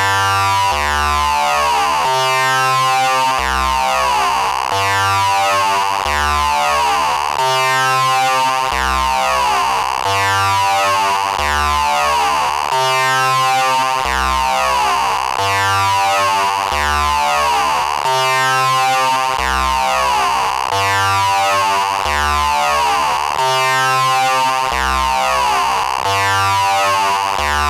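Eurorack modular synthesizer playing a looping melodic sequence at 135 BPM: a triangle-wave oscillator bit-crushed by a Doepfer A-189-1 bit modifier into stacked pulse-like tones, run through a high-pass filter with its distortion circuit engaged. The notes change about twice a second, each with a falling sweep through its upper range.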